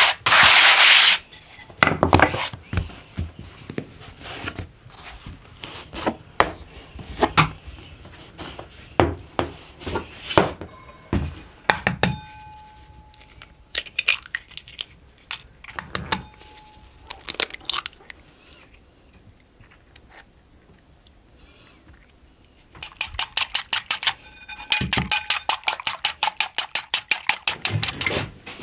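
Baking sounds at a wooden kitchen table: a wooden rolling pin rubbing over floured dough at the start, then scattered knocks and clinks of dishes, with an egg tapped against a glass bowl that rings briefly about halfway through. Near the end comes a fast, even run of strokes, several a second.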